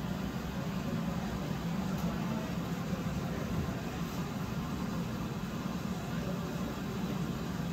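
Glassblowing furnace and glory hole running with a steady, even rumble that does not change.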